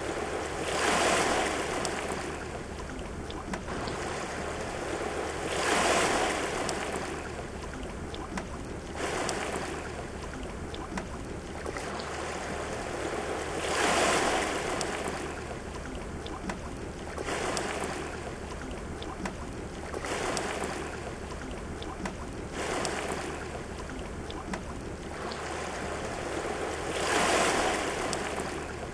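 Sea surf breaking and washing over a rocky shore, swelling and ebbing every few seconds, with the biggest surges about a second in, about six seconds in, midway and near the end.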